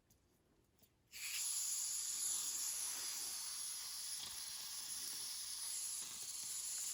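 Isobutane gas hissing steadily from a backpacking canister stove, starting suddenly about a second in.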